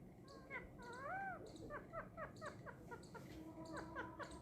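Pet parrot calling: one rising-and-falling call about a second in, then a quick run of short downward chirps, four or five a second.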